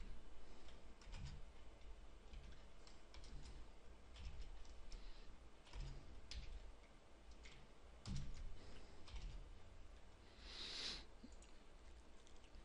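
Faint typing on a computer keyboard, with scattered separate key and mouse clicks.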